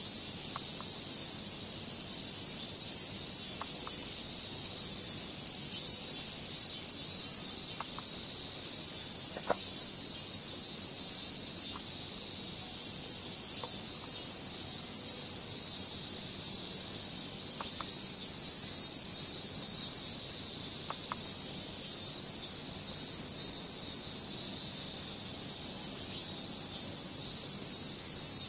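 A chorus of cicadas making a steady, high, unbroken hiss. A few faint, brief squeaks come through now and then.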